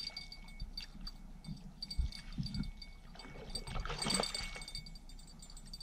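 A hooked rainbow trout being landed, thrashing and splashing water, with scattered knocks of handling. The splashing comes in two rushes, a short one about two and a half seconds in and a longer one about a second later. Faint steady high tones run behind.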